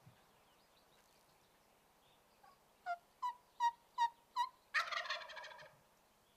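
Five short turkey yelps, about a third of a second apart, followed at once by a Rio Grande wild turkey gobbling for about a second.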